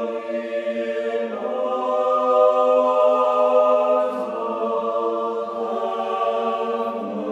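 Choir singing slow, sustained chords, moving to a new chord about a second in and again about four seconds in.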